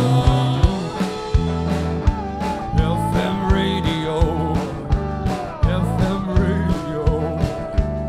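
Live rock band in an instrumental break: an electric slide guitar plays a lead line that glides and wavers in pitch, over a steady drum beat and bass.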